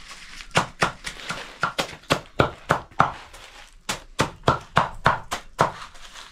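A hand-held blade chopping through fodder plant stalks in quick, sharp strokes, about three a second.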